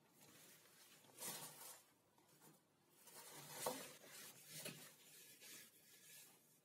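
Faint rustling and handling of a book's pages and a sheet of paper, in two short stretches about a second in and from about three to five seconds in, with a light knock near the middle.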